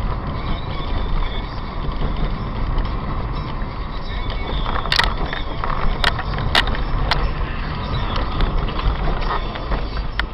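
Steady road and engine noise inside a moving car, recorded by a dash camera, with a few sharp clicks about halfway through.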